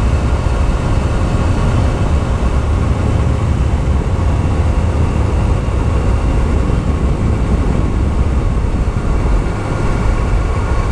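Yamaha YZF-R6S sport bike's 600 cc inline-four engine running at a steady cruising speed, its even drone nearly buried under heavy wind rush on the microphone.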